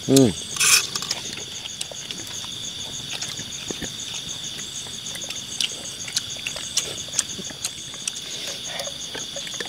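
Steady chorus of crickets and other night insects: a constant high whine with a faster pulsing trill above it, dotted with small clicks. A short throaty vocal sound comes at the very start.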